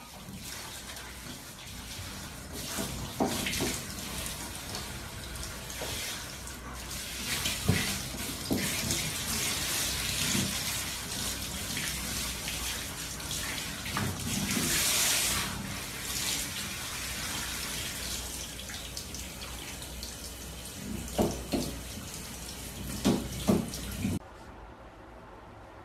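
Handheld shower head spraying a steady stream of water over a dog's coat in a shower stall, with a few short louder sounds mixed in. The spray stops abruptly near the end.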